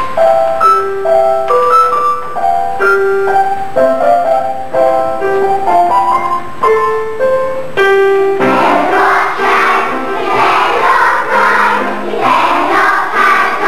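Electronic keyboard playing a melody in clean, steady notes; about eight seconds in, a children's choir comes in, singing over the keyboard.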